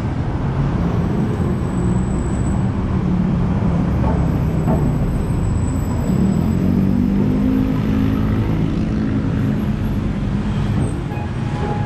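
Road traffic on a busy city street: the engines of cars and buses drone steadily, with one engine's pitch rising about six seconds in.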